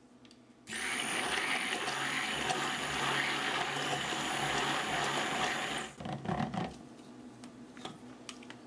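Stick blender running in a plastic jug of liquid oils with clay, goat milk powder and colloidal oatmeal stirred in, blending before the lye goes in. It starts about a second in, runs steadily for about five seconds and cuts off, followed by a few light knocks.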